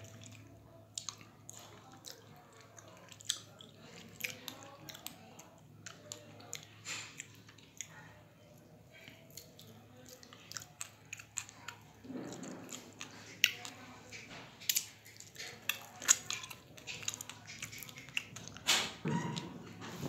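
A person chewing and biting into soft, seedy dragon fruit close to the microphone: wet mouth clicks and smacks scattered irregularly throughout. Two short murmurs come about twelve seconds in and again near the end.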